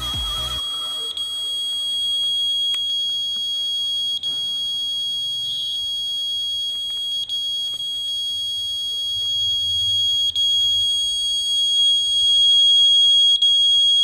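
Arduino-driven piezo buzzer sounding one continuous high-pitched tone: the door-open alarm set off because the mouse sensor has been slid.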